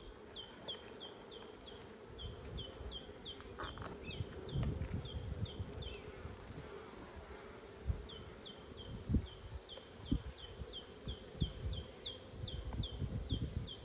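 Honeybees buzzing around an opened nucleus hive, a steady hum. Runs of short high chirps repeat about three times a second, and there are occasional soft low knocks.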